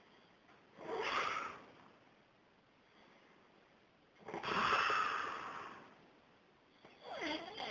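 A man snoring in his sleep: three noisy snoring breaths, the middle one the longest, with quiet pauses between them.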